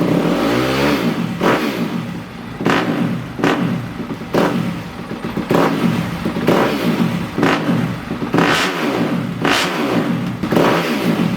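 2020 Yamaha YZ250F single-cylinder four-stroke through an FMF 4.1 carbon-tip exhaust, blipped again and again, about once a second, each rev dropping quickly back to idle.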